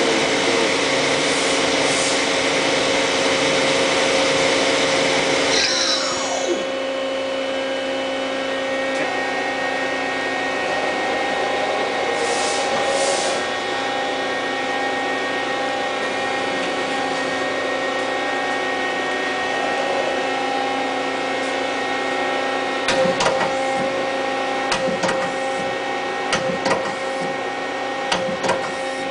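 Mazak QT18N CNC lathe: the spindle spins the chuck with a steady whine, then winds down about six seconds in, with the pitch sliding downward. After that the machine runs on with a quieter steady hum, and a few sharp clicks and knocks come near the end.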